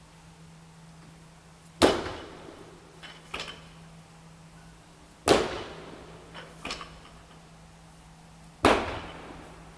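Sharp knocks in a regular rhythm, three of them about three and a half seconds apart, each ringing out briefly and followed by two lighter clicks, keeping time with repetitions of a resistance-band press. A steady low hum runs underneath.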